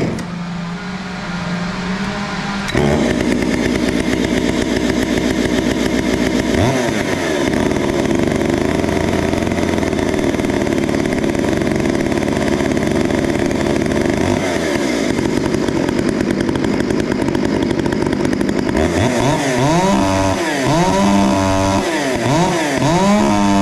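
Stihl MS 661 two-stroke chainsaw with a triple-port muffler, pull-started and coming up to full loudness about three seconds in, then running. In the last few seconds it is revved up and down several times in quick succession.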